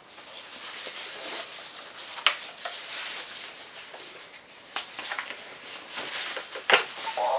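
Packaging rustling and being handled as a new keyboard is unboxed, with a sharp click about two seconds in and a few quick taps near the end.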